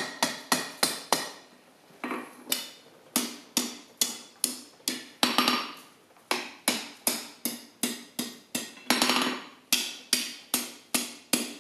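Hand hammer striking hot steel on a blacksmith's anvil in quick runs of blows, about three a second, each with a short metallic ring; the hot bar is being bent into a ring over the horn and face. The blows pause briefly about two seconds in and again around six seconds.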